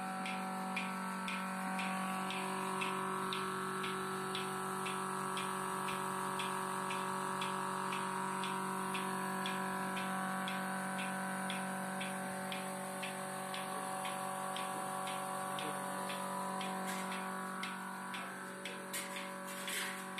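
Trolley milking machine running: its 0.75 hp motor and oil-type vacuum pump hum steadily while the pulsator clicks at an even pace, about two clicks a second. A few louder knocks come near the end.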